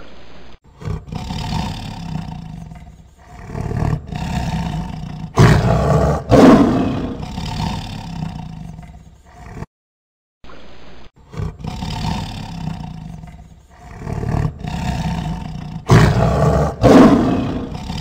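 Tiger roaring and growling, the same recording heard twice in a row. Each run starts with low growls and builds to its loudest roars about two-thirds of the way through.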